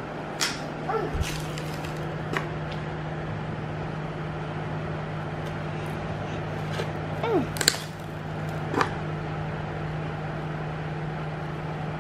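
A small screwdriver scraping and clicking against the edge of a corrugated cardboard sheet on a tile floor, a few sharp scrapes spread out, over a steady low hum. A couple of short, high, rising-then-falling vocal sounds from a child about a second in and again past the middle.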